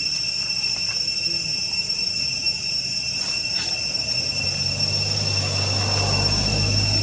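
A low engine hum builds up from about halfway through, under a steady high-pitched drone.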